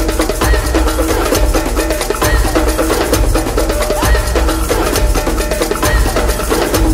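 Background music with a steady percussive beat and heavy bass, a short phrase repeating about every two seconds.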